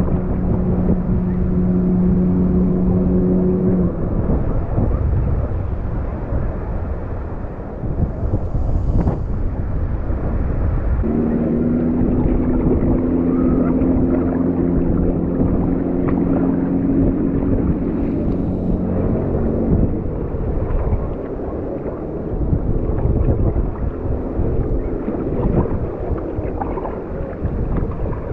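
Low rumble of wind buffeting the microphone, with an engine's steady drone over it during the first four seconds and again from about eleven to twenty seconds in, its pitch rising slightly in the second stretch.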